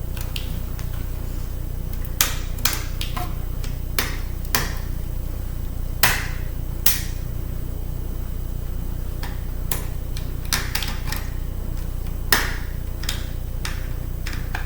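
Irregular sharp metal clicks and taps from small tools and parts being handled while a laptop CD drive is taken apart, about a dozen in all, the loudest about six and twelve seconds in. A steady low hum runs underneath.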